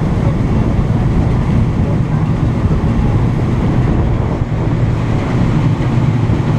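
A passenger ferry's engine running steadily under way as a loud, even low rumble, with the rush of the churning wake water behind the stern.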